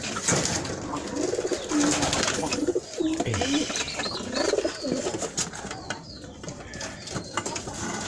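Kienyeji hen making a series of low clucking calls, thinning out after about five seconds.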